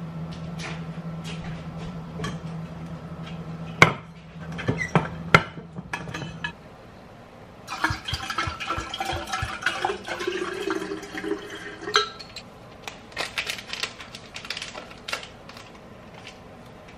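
Water poured from a glass bottle into an insulated steel water bottle for about four seconds, the pitch rising as the bottle fills. Before it, a low hum stops and a few sharp knocks of bottles being set down sound, the loudest about four seconds in; after it, small clicks and crinkles of a packet being handled.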